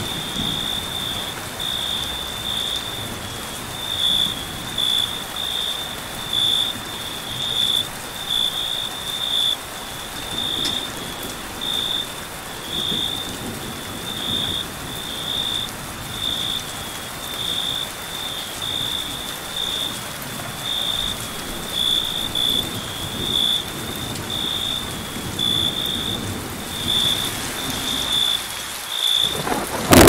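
Steady rain falling on forest foliage, with a cricket chirping a high-pitched tone in short pulses about one to two times a second.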